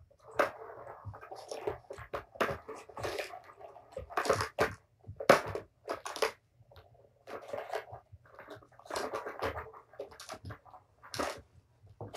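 Kittens batting at a plastic Tower of Tracks ball-track toy: irregular plastic clicks and knocks mixed with scuffling on the rug.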